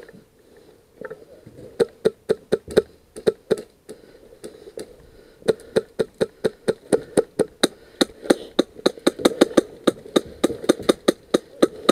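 VFC SCAR-L airsoft rifle firing: a few scattered shots, then from about five and a half seconds in a fast, even run of single shots at about five a second.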